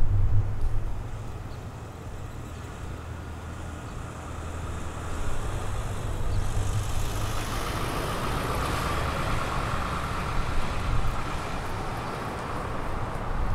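A car drives past on the road beside the harbor. Its engine and tyre noise build from about five seconds in, peak a few seconds later, then fade.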